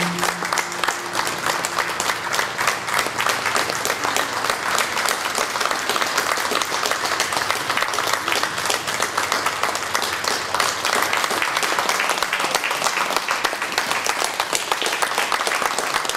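Audience applauding steadily at the close of a performance. A last held note of the music fades out in the first second or two.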